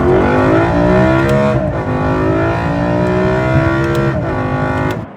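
BMW M3's S65 V8 accelerating hard through the gears, fitted with a carbon fiber intake and plenum. The engine note climbs, drops sharply at two upshifts, climbs again, then cuts off suddenly.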